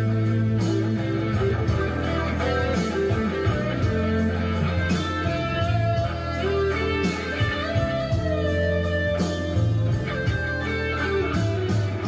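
Guitar-led rock music with bass and drums, a steady beat.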